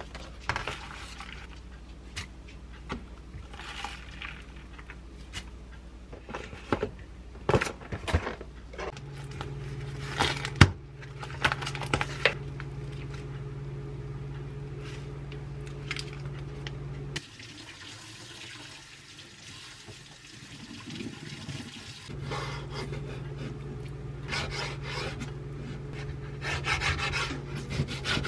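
Kitchen tap water running into a sink, on and off, while baby salad greens and raw chicken thighs are rinsed. Crinkling plastic packaging and light clatter of handling run through it.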